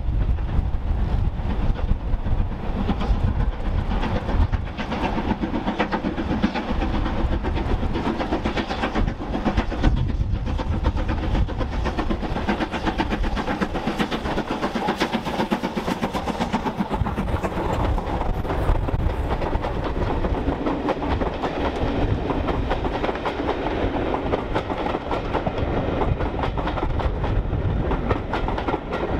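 Steam-hauled passenger train passing close by: BR Standard Class 4 2-6-4 tank 80080 and Bulleid Battle of Britain class 34072 '257 Squadron' double-heading under steam with rapid exhaust beats. The coaches follow, their wheels clicking over the rail joints.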